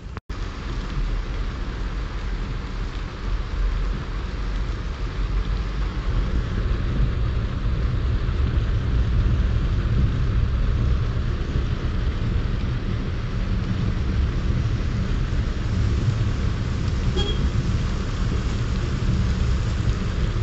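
Heavy rain beating on a moving car's windscreen and roof, heard from inside the cabin, over a steady low rumble of the car on the wet road.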